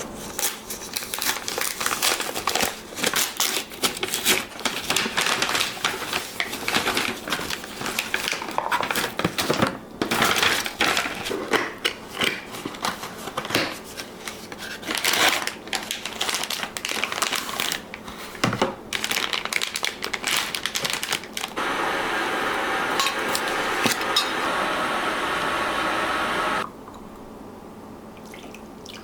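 Kitchen food-preparation handling: irregular crinkling, rustling and light clicks and knocks. Near the end comes about five seconds of steady rushing noise that stops abruptly.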